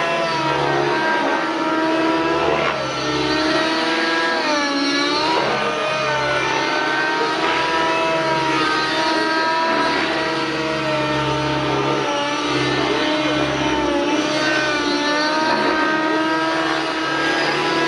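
O.S. MAX-55HZ glow engine of a JR Vibe 50 NEX radio-controlled helicopter running at high revs in aerobatic flight. Its note dips and recovers a few times, most deeply about four to five seconds in and again near fourteen seconds.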